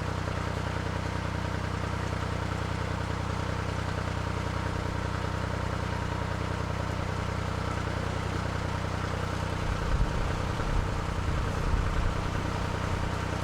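Narrowboat's diesel engine running steadily at cruising speed. From about ten seconds in, gusts of wind buffet the microphone in low, uneven rumbles.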